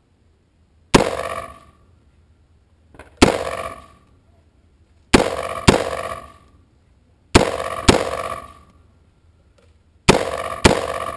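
Eight gunshots from an AR-15 pistol in 5.56/.223, each with a short ringing tail: two single shots, then three quick pairs of shots.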